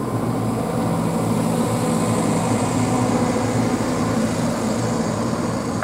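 Diesel engine of a Liebherr 922 Litronic wheeled excavator running steadily as the machine drives past.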